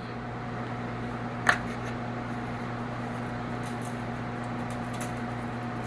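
A steady mechanical hum throughout, with a single sharp click about one and a half seconds in, then faint light rattling as seasoning rub is shaken from a plastic shaker bottle onto the steaks.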